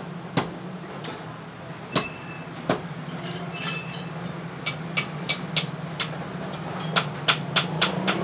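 Hand hammer striking steel tong parts on a steel anvil block: sharp, short metallic blows, a few spaced out at first and then a quicker run of strikes in the second half.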